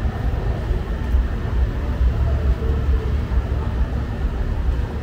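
Steady low rumble of city street noise, like vehicle engines, with no distinct event standing out.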